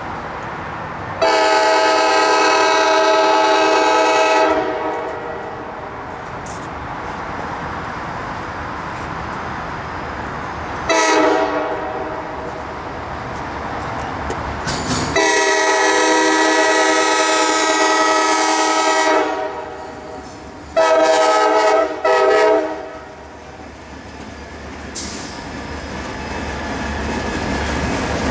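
CSX freight locomotive's air horn sounding for a grade crossing: a long blast about a second in, a short one, a second long blast, then two short blasts close together. Between the blasts the rumble of the approaching train rises, growing loudest near the end as the locomotives pass.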